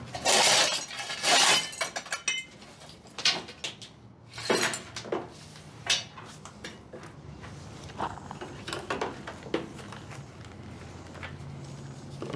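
A shovel scraping up rubble and dirt from the floor, with rocks and broken debris clinking and clattering as they go into a plastic bucket. Two loud scrapes in the first two seconds, then scattered scrapes and clinks.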